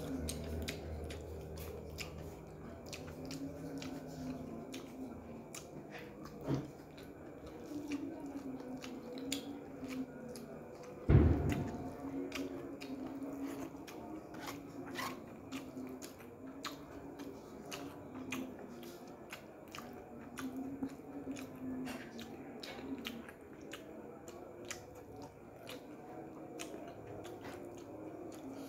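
Close-up mouth sounds of a person chewing chicken hearts and rice eaten by hand: many small wet clicks and lip smacks. A single heavy thump comes about eleven seconds in.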